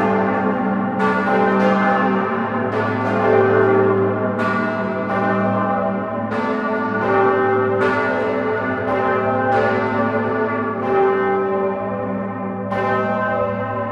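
Full peal of large Grassmayr-cast bronze church bells swinging in the tower, heard up close. Overlapping, irregular strikes, one or two a second, ring out over a deep, steady hum.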